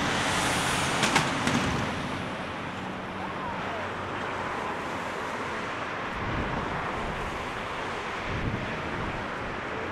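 Boeing 787-8 airliner's twin jet engines at takeoff thrust during the takeoff roll: a steady jet roar, loudest about the first two seconds and easing as the aircraft moves away down the runway. A few sharp clicks come about a second in, and a couple of low thumps come later.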